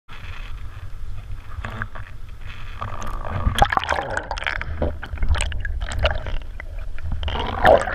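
Muffled underwater gurgling and bubbling heard through a submerged camera, over a steady low rumble, with many short sharp pops and a louder burst near the end.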